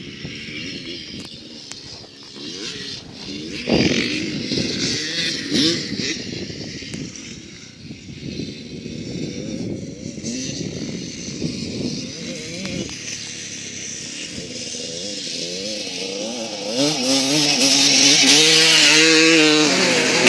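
Motocross bikes' engines revving up and down as they ride the track, distant at first and growing much louder in the last few seconds as riders come close.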